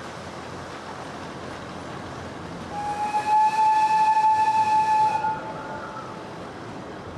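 Miniature park train's whistle, one blast of about two and a half seconds made of several steady tones sounding together, starting a little under three seconds in, over a steady background noise.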